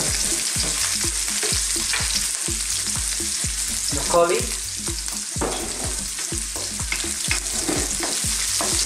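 Onion, garlic and ginger sizzling in hot oil in a wok, stirred with a wooden spatula in a steady rhythm of scraping strokes, several a second.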